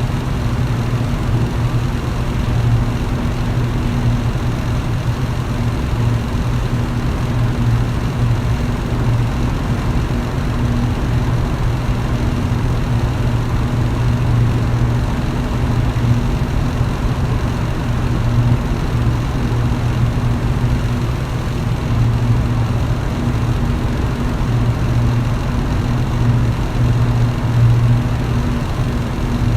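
Electric fan running steadily: a low motor hum under a constant rush of moving air.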